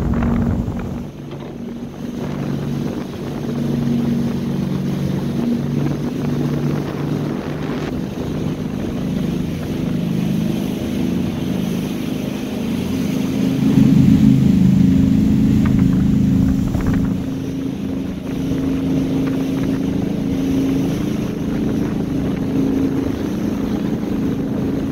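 Motorboat engine running steadily under way, a low hum heard from aboard, with wind on the microphone. It gets louder about halfway through.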